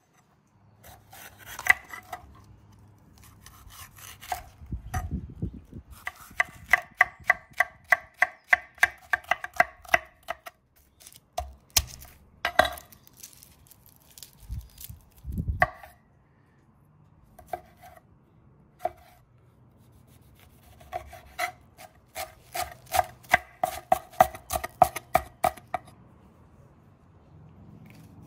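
Chef's knife chopping on an end-grain wooden cutting board. There are two long runs of quick strokes, about four or five a second, with single cuts and a couple of heavier thumps in between.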